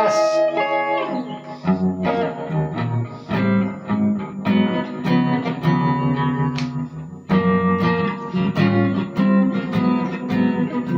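Guitar played clean through the Meteor "Taco Wagon" handmade tube amplifier, in jazz style: chords over low moving notes. A ringing chord opens it, and the playing settles into a steady run of chords from about two seconds in.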